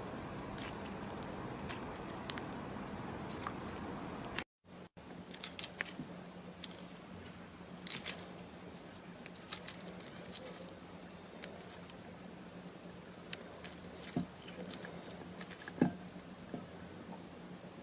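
Slime being squeezed and poked by hand, giving small scattered clicks, pops and squishes. The sound cuts out briefly about four and a half seconds in.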